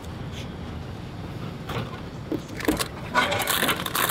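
A bread vending machine and its packaged item being handled: a few short knocks and clicks, growing busier near the end, over a steady low hum.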